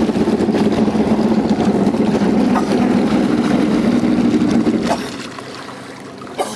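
Boat engine running steadily with a low hum, then dropping much quieter about five seconds in. A short knock near the end.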